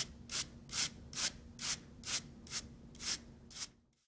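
Wire brush scrubbing the exposed copper foil and conductor end of a coaxial cable in regular back-and-forth strokes, about two and a half a second, stopping just before the end.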